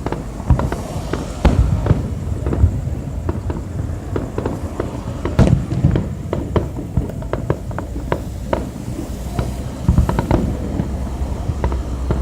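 Fireworks exploding: a dense run of booms and sharp bangs with crackling in between, over a low rumble, with the loudest bangs about half a second, one and a half seconds and five and a half seconds in.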